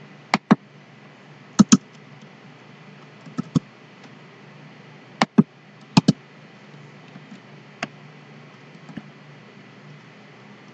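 Computer mouse and keyboard clicks while code is edited: five sharp double clicks in the first six seconds, then a few fainter single clicks, over a low steady hum.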